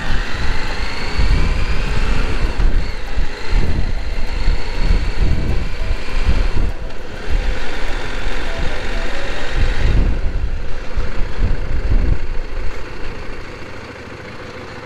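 Motorcycle engine running under way on the road, with heavy wind buffeting on the microphone. The engine note climbs over the first few seconds, and the whole sound gets quieter near the end.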